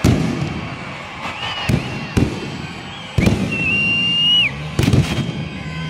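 Fireworks rockets bursting overhead: sharp bangs about once a second, with a quick cluster near the end. A thin high whistle sounds briefly, then again for about a second in the middle.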